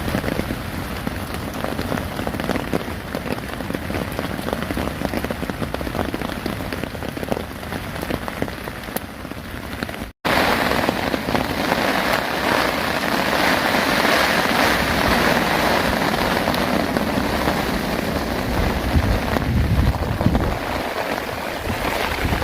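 Steady rain drumming on a hammock tarp, with wind. About ten seconds in the sound cuts off abruptly and comes back louder and heavier, the rain coming down hard.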